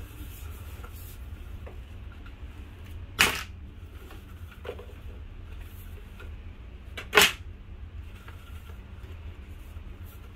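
Loose faux wood vinyl blind slats being handled and set aside, with two sharp clacks about four seconds apart over a steady low hum.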